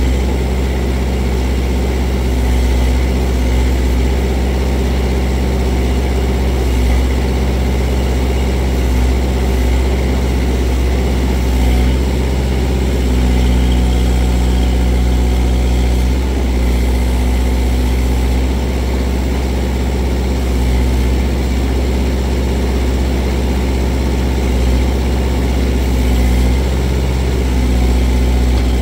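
Kubota L48 tractor-loader-backhoe's four-cylinder diesel engine running steadily while the backhoe digs at a stump, its note shifting slightly every few seconds as the hydraulics take load.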